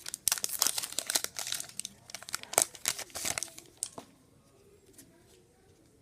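A trading-card pack wrapper being torn open and crinkled by hand, a dense crackling that stops about four seconds in.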